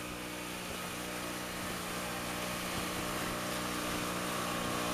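Small motorboat's engine running steadily under way, with water rushing and splashing past the hull and wind, slowly getting louder.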